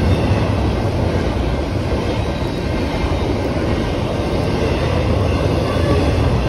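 Double-stack intermodal container train rolling past at a grade crossing: a steady, heavy rumble of freight-car wheels on the rails.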